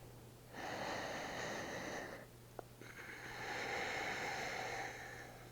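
A woman breathing deeply and audibly into the microphone: two long, airy breaths, the second starting about half a second after the first ends.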